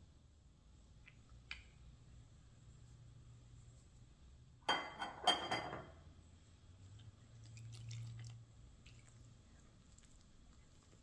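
Kitchen handling sounds as dry ingredients go into a ceramic mixing bowl of flour from small glass cups: a brief loud cluster of clinks and scraping about halfway through, with a few faint taps and clicks around it.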